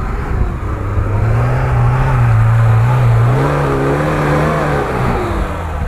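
Off-road car engine revving under load as the vehicle tries to drive out of an obstacle. Its pitch climbs over the first two seconds, holds, then drops away near the end.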